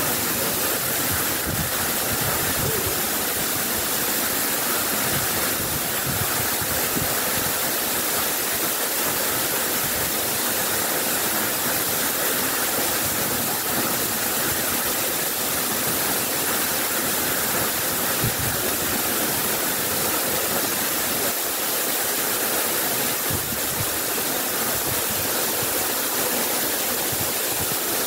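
Waterfall plunging into a rock pool: a steady, even rush of falling water.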